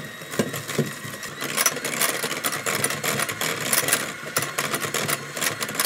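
Electric hand mixer running, its beaters whipping egg yolks and sugar in a glass bowl, with frequent sharp clicks of the beaters against the bowl.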